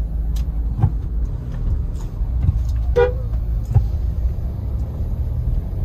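Steady low engine and vehicle rumble heard from inside a Mahindra Thar's cabin in a slow checkpoint queue, with a short car-horn toot about three seconds in and a few brief knocks.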